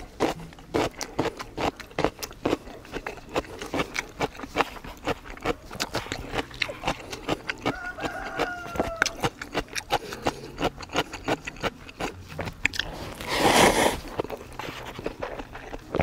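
Close-up eating sounds from someone eating spicy beef-soup (yukgaejang) cup ramen: chewing with many short wet clicks, about three or four a second. A brief whine comes about halfway through, and a loud noisy rush about a second long comes near the end.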